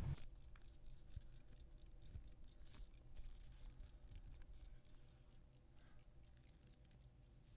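Faint ticking of a restored fusee pocket watch movement running, with a faint low hum that stops about five seconds in.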